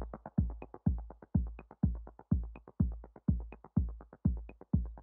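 Electronic background music with a steady drum-machine beat of about two low kick-drum hits a second.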